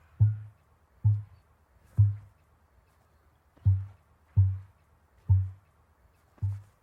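Male ostrich booming: a series of short, low booms, about seven in all, roughly a second apart with a longer pause near the middle.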